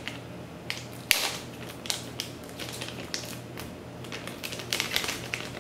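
Clear plastic bag crinkling and rustling in irregular bursts as a metal CPU water block is unwrapped from it by hand, with a sharp click about a second in.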